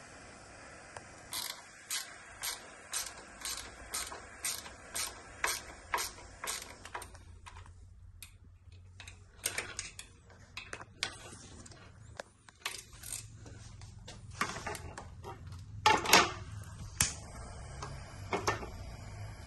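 Small hand ratchet turning a bolt on an electric scooter's rear suspension link, clicking in even strokes about two a second, then irregular ratchet clicks and metal knocks as the tool is repositioned, loudest about two-thirds of the way in.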